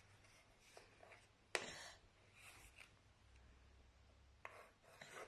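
Mostly quiet: faint scratching of a drawing stick on a small wooden-framed drawing board, with one sharp tap about a second and a half in.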